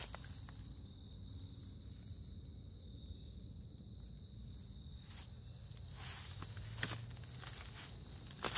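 Insects trilling steadily at one high pitch. Footsteps on dry leaf litter start again about five seconds in after a pause, the loudest step near seven seconds.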